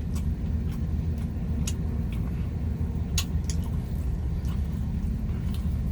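Steady low rumble of a car running, heard inside the cabin, with a few short clicks and smacks of someone chewing a cheese popper.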